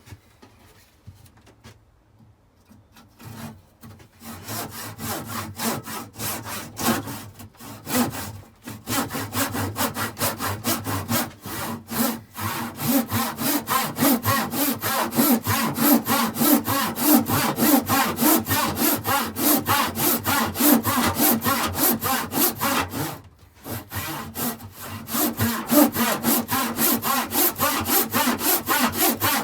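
Handsaw rip-cutting along a thick square length of timber: quick, even back-and-forth strokes that start a few seconds in, stop briefly about three-quarters of the way through, then carry on.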